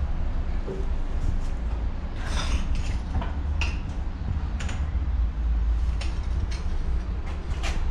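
Steady low machinery rumble, with scattered light clicks and knocks from about two seconds in.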